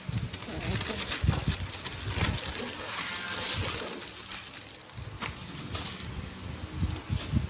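Plastic packing wrap crinkling and rustling as packing material is pulled out of a new Canon printer, with low handling knocks; the crinkling is loudest about three seconds in and fades out by about four and a half seconds.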